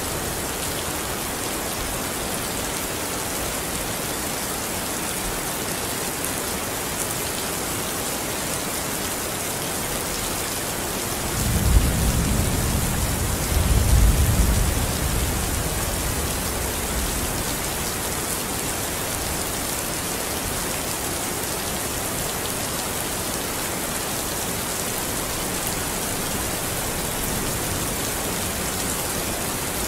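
Steady rain, with a low rumble of thunder about twelve seconds in that swells twice and fades over a few seconds.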